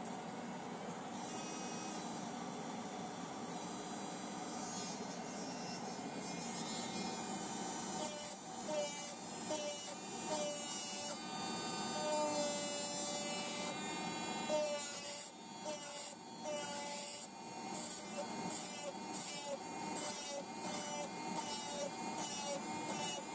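Electric nail drill running with a dust extractor fan, a steady motor whine and hum. From about eight seconds in, the drill bit grinds against artificial fingernails in short repeated passes, about one to two a second, the whine wavering as the bit meets the nail.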